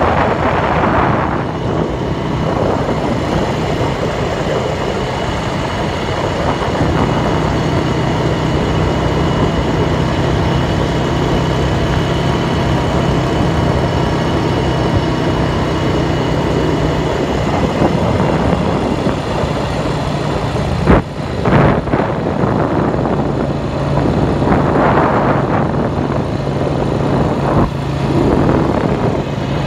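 Ford farm tractor's engine running steadily while it travels along a paved road, with a heavy rush of noise over the engine note. Two sharp knocks come about two-thirds of the way through, and the engine note dips and then returns around them.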